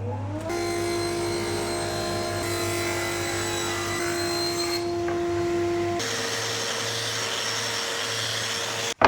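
Festool Rotex sander running on wood with a steady whine, speeding up over the first half second; its tone shifts about six seconds in and it cuts off abruptly near the end.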